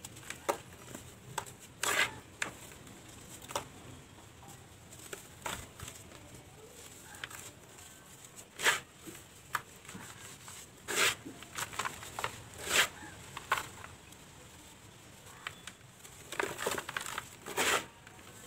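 Dry cement and dirt balls crushed and crumbled by hand, giving irregular gritty crunches and crackles. Several crunches come in quick succession near the end.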